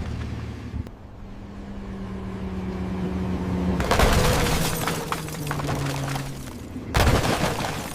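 Car crash sound effects: an engine-like hum builds over a few seconds, then a loud crash about four seconds in dies away slowly. A second sharp crash comes near the end.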